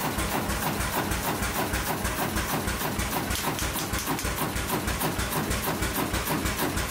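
Century-old Kromhout hot-bulb marine engine running at a slow, steady idle, with an even beat of about four to five strokes a second.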